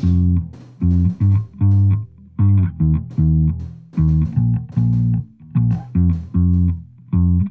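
Electric bass line of short plucked notes with brief gaps, played back through the Waves RBass plug-in, which thickens the low end by adding low harmonics around 80 Hz.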